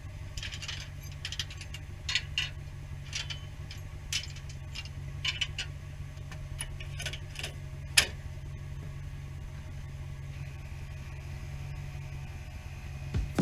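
Polaris side-by-side's engine idling steadily, with scattered light clicks and rattles over it and one sharp click about eight seconds in.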